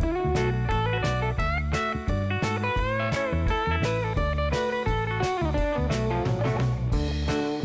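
Background music: blues-style guitar with sliding notes over bass and a steady beat.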